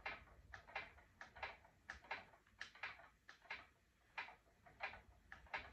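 Faint, quick ticking of a wooden spinning wheel being treadled, about three to four clicks a second, as the flyer turns and twists wool into yarn.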